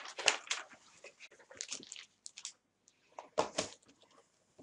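Handling noise: a plastic TactiPad drawing board being set down and slid into place on the drawing arm's base, with irregular scrapes and light knocks.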